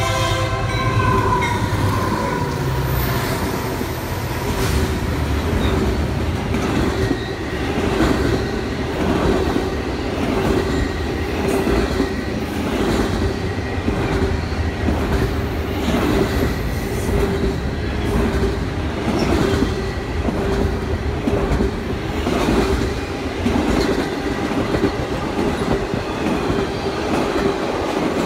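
Intermodal freight train of double-stack container cars and trailers passing close at speed: a steady rumble and rush of wheels on rail, with regular clacks about once every second and a half and one steady high tone held under it.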